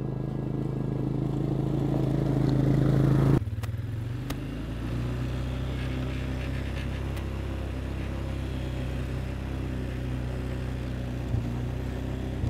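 Quad bike engine running steadily as the ATV rides up a gravel track, growing louder as it approaches. About three and a half seconds in the sound drops suddenly, and the engine carries on steadily and somewhat quieter.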